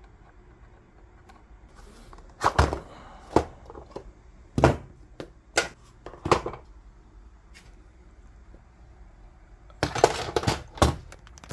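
Plastic diffuser cover of an LED light fixture being pried off its clips with a plastic pry tool and the fixture handled: a string of sharp clicks and knocks, spaced out through the middle, with a quick cluster of them near the end.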